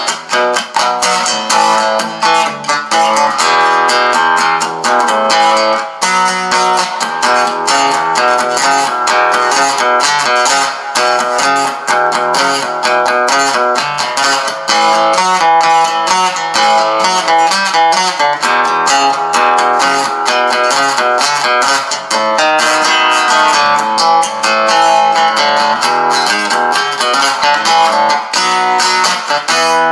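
Madera acoustic guitar strummed and picked in a continuous run of ringing chords, with sharp pick strokes.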